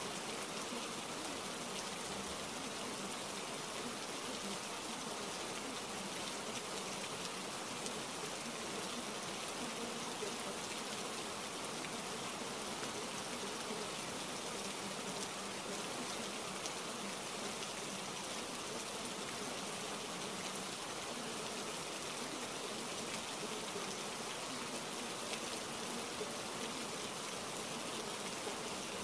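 Steady rain-like hiss with an even level throughout, the masking background sound of a subliminal track.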